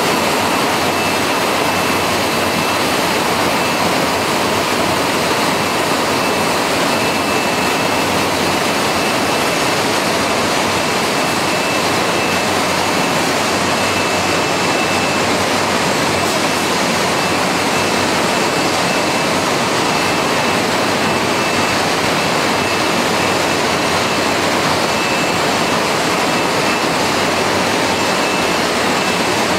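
Chicken processing line running: a steady, loud, even rushing noise of the machinery, with a faint high whine that comes and goes.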